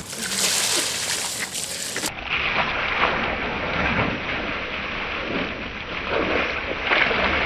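Steady hiss of water spraying from a slip and slide's sprinkler jets, with splashing as a boy slides down the wet plastic sheet into the pool at its end.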